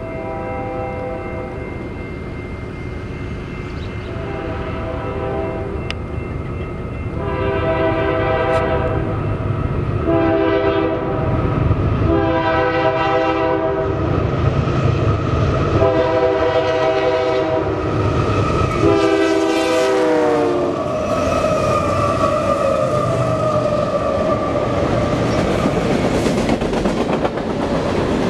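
Diesel freight locomotive's air horn sounding a series of blasts, a chord of several tones, as the train approaches; the pitch drops as the locomotive passes about twenty seconds in. After that comes the rumble and clickety-clack of covered hopper cars rolling by.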